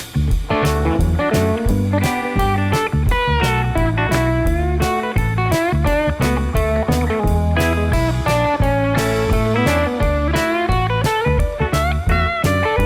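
Background music: blues-style electric guitar with bending notes over bass and a steady beat.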